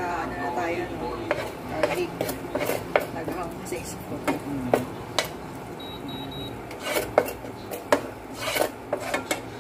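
Plastic spatula scraping and tapping against a nonstick frying pan in irregular strokes while stirring chopped garlic frying in oil, with the oil sizzling underneath.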